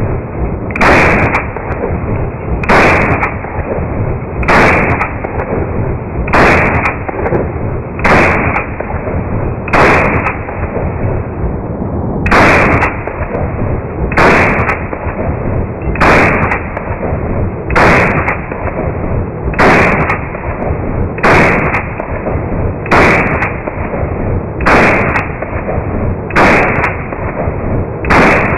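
AR-15 rifle fired in a steady series of single shots, about one every two seconds with one longer pause near the middle, sixteen in all. A low rumble fills the gaps between shots.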